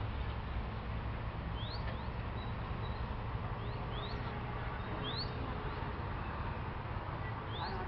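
Birds chirping: about half a dozen short, quick upward chirps, spaced irregularly, over a steady low rumble.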